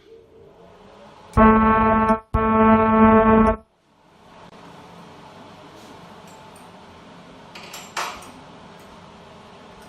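A buzzing warning horn sounds two steady blasts, the second longer, then a machine runs with a steady hum and a click near the end.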